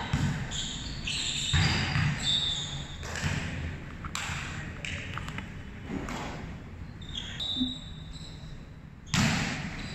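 Volleyball rally: irregular sharp slaps and thuds of the ball off players' hands and forearms and the court floor, the loudest near the end.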